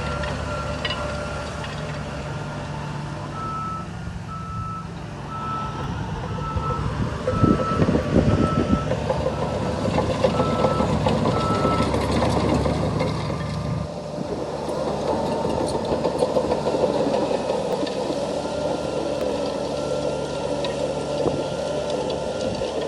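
Diesel engine of heavy earthmoving machinery running, with a reversing alarm beeping about once a second for several seconds, stopping around twelve seconds in. A burst of loud clattering, the loudest moment, comes about seven seconds in.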